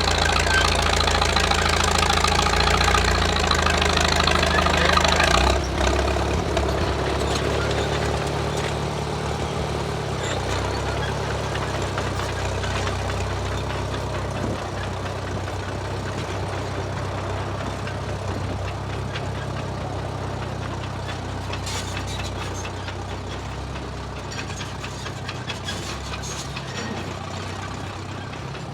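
1934 Caterpillar bulldozer's engine running. It is loud for the first five seconds or so, drops off sharply, then fades slowly.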